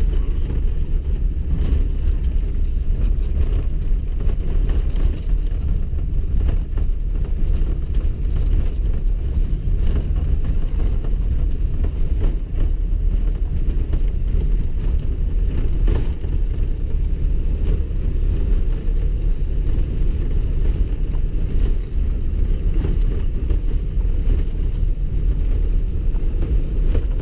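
Cabin road noise of a vehicle driving slowly over packed, refrozen snow and ice ruts: a steady low rumble from the tyres and the rough surface, with many small knocks.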